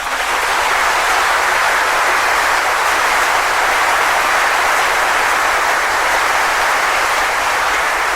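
A large audience applauding: dense, steady clapping from a huge crowd, held at full strength.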